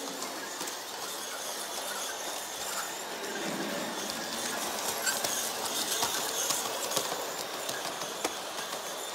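Large-scale electric model train running around a circle of track: the steady rolling hum of its motor and wheels, with sharp clicks as the wheels cross the rail joints. It gets fuller as the locomotive passes close by about three and a half seconds in.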